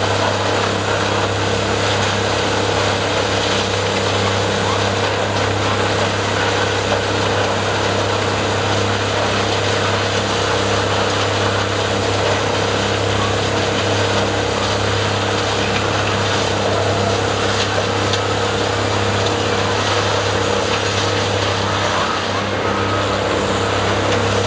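Toro Progrind 2000 tub grinder running steadily under load, its engine giving a constant low hum beneath the steady noise of wood waste being ground in the tub. A wheel loader moves past near the end.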